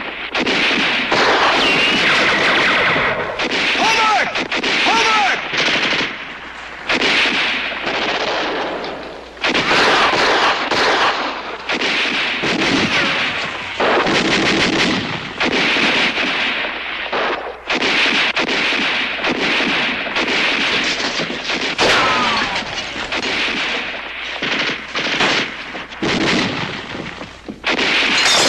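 Battle gunfire: rapid machine-gun bursts mixed with rifle shots, in long dense runs broken by brief lulls.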